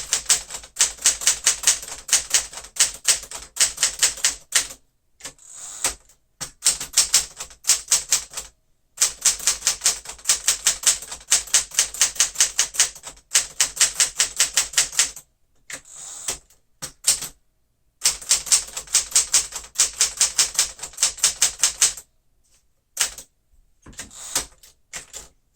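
1961 Smith-Corona Galaxie manual typewriter being typed on: runs of sharp key strikes at about six a second, with short pauses between runs.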